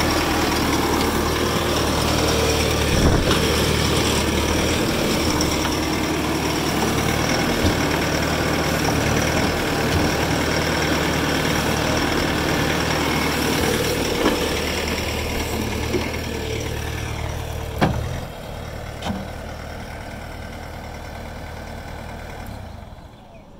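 Bobcat T590 compact track loader's diesel engine running steadily, with a few sharp knocks and clunks. The loudest knock comes near the end, after which the engine sound is quieter.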